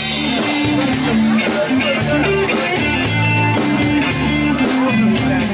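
Live rock band playing: electric and acoustic guitars, bass guitar and drum kit keeping a steady beat.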